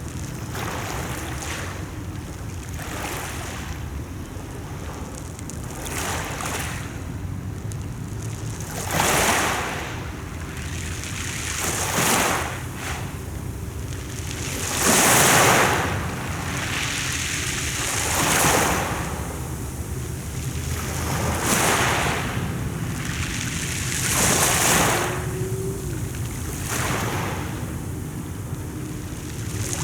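Sea waves washing onto the shore, a surge of surf about every three seconds over a steady low rumble.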